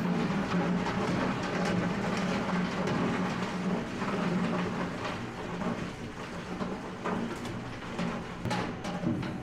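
Factory machinery running: a steady low hum with constant clatter and rattling, and a few sharper knocks near the end.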